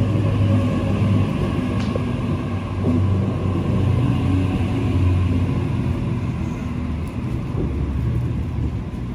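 Sydney double-deck electric passenger train alongside the platform, giving a steady low hum and rumble from its motors and onboard equipment.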